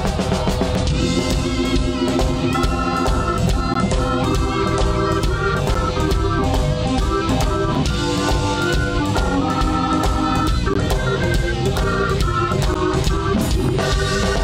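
Live blues band playing an instrumental passage: electric guitar over electric bass and a drum kit keeping a steady beat.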